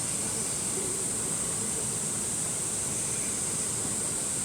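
Steady rushing of a mountain valley stream, under a constant high-pitched insect drone.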